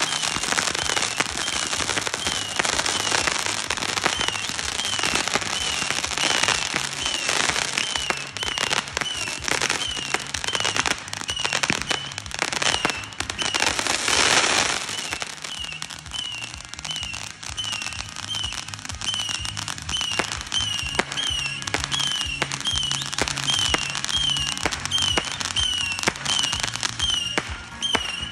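Ground fireworks firing in a rapid barrage of crackles and pops, densest in the first half, with a loud hissing burst about fourteen seconds in, then thinner crackling. Music plays underneath.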